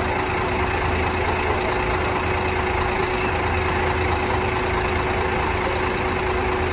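Scania coach's rear-mounted diesel engine idling steadily, with a steady whine held over the low engine rumble.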